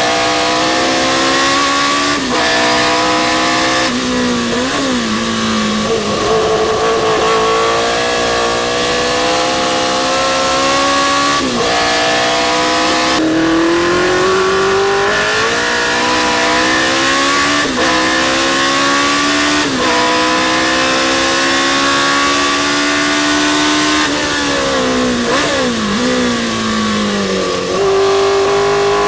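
Historic sports racing car's engine at race pace, its pitch climbing through the revs and dropping sharply at each upshift. Twice, about four seconds in and again near the end, the revs fall away through a series of downshifts with throttle blips into a corner.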